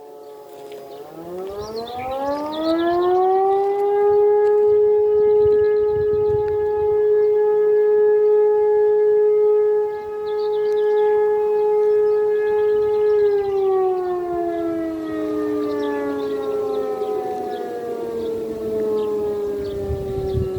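E57 motor siren starting up again from a low pitch about a second in, rising into a steady howl that holds for about nine seconds, then winding down as its motor is cut. This is one of the rise-and-fall cycles of the interrupted 'Feueralarm' fire-alarm signal. Near the end, a second siren's tone falls slowly alongside it.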